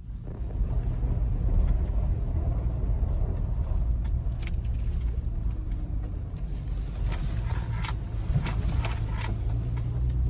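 Car driving, with a steady low rumble of engine and road noise. A handful of short clicks and crackles come in the second half.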